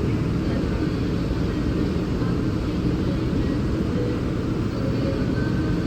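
Steady low rumble of a train at a railway platform, unchanging throughout, with a few faint steady tones above it.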